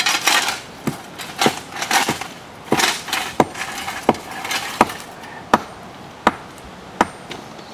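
Steady hammer blows, about eleven sharp strikes at an even pace of roughly one every three-quarters of a second, with some rough scraping in the first few seconds.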